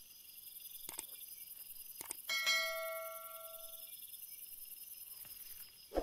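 A single notification-bell chime rings out about two seconds in and fades over about a second and a half, just after a couple of sharp clicks: the sound effect of a subscribe-button animation. Under it runs a steady high chirring of night insects.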